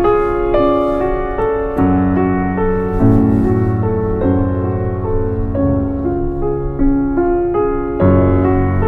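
Background music: gentle piano playing a steady run of notes over sustained bass notes.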